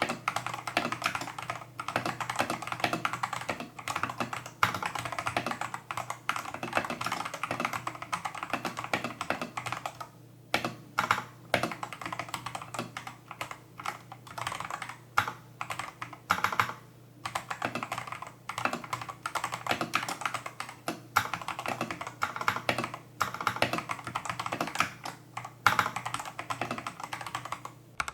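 Continuous fast typing on a Tester68 mechanical keyboard with stock, factory-lubed clone Holy Panda tactile switches and XDA-profile keycaps: a dense run of keystroke clacks, broken by a few brief pauses.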